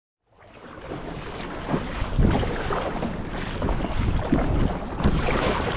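Wind buffeting the microphone over water slapping and sloshing against a kayak's hull, fading in from silence at the very start.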